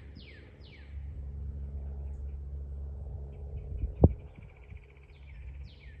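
Songbirds singing: a run of quick down-slurred whistles at the start and again near the end, and a fast trill in the last two seconds. A low rumble runs through the middle, and a sharp thump about four seconds in is the loudest sound.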